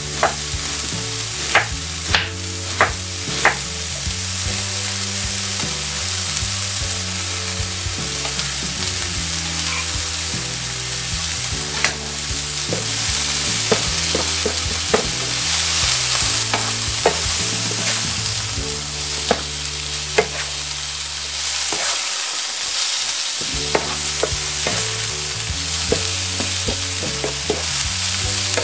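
Shredded cabbage, carrots and sweet peppers sizzling as they stir-fry in a frying pan, with a wooden spoon stirring and knocking against the pan every so often.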